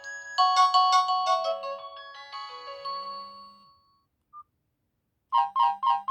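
Nokia 225 mobile phone playing its built-in ringtones: a quick melodic jingle starts just under half a second in and rings out, fading by about four seconds. After a short beep and about a second of silence, another ringtone starts with a fast repeating note figure, about two and a half notes a second. A short low buzz comes in about every two seconds.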